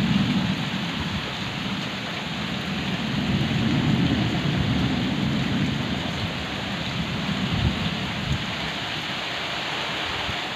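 Heavy rain pouring steadily onto a tarpaulin roof in a thunderstorm, with low rumbles of thunder swelling and fading twice.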